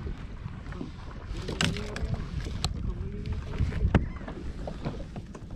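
Wind on the microphone and sea noise on open water around a fishing kayak, with a few sharp knocks and clicks of gear; the loudest knock comes about four seconds in.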